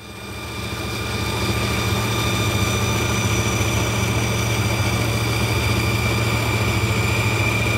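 Vertical bandsaw running with its blade cutting straight through birch plywood: a steady motor hum and a high, even whine with a sawing hiss, swelling over the first second and then holding steady.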